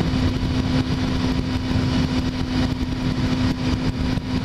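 Kawasaki Ninja motorcycle engine running at a steady cruise, with a constant engine tone under heavy wind noise on the microphone.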